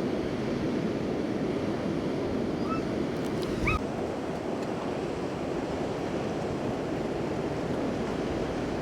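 Ocean surf washing steadily, with wind buffeting the microphone. A couple of faint short high calls are heard near the middle.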